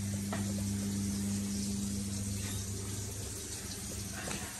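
Tap running into a washbasin while a man splashes water on his face and hair, with a few small splashes. A steady low hum sits under it.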